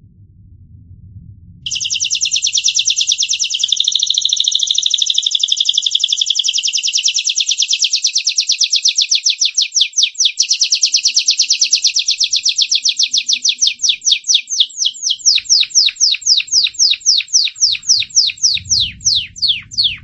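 A crested Gloster canary (Gloster corona) singing one long rolling song that starts suddenly about two seconds in. It begins as a very fast, dense trill and slows steadily into separate, quickly falling chirps near the end.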